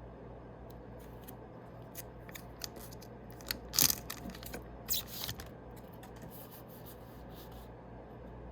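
A foil Yu-Gi-Oh booster pack being opened and its cards handled: crinkling wrapper and light card rustles, with two louder crinkles about four and five seconds in.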